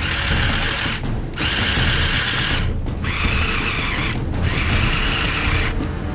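Small electric motors in a brick-built RC tank chassis whining as they turn worm gears, driven from the remote in four bursts of about a second each with short pauses between.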